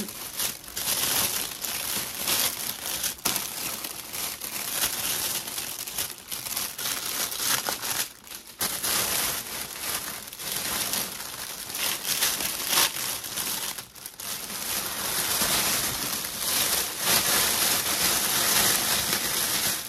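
Clear cellophane gift wrap crinkling and rustling steadily and irregularly as it is handled and gathered around a basket.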